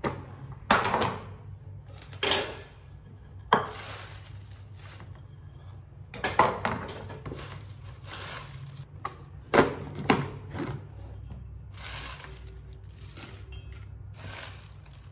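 Plastic salad spinner handled on a counter: several sharp plastic knocks as the basket and lid are moved and set down, with short rustles of wet spinach leaves stirred by hand.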